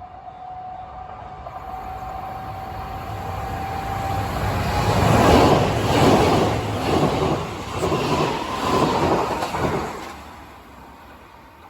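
A Kintetsu Minami-Osaka Line train passes over the level crossing. It swells to its loudest about five seconds in, with a rhythmic clatter of wheels over the track, then dies away near the end.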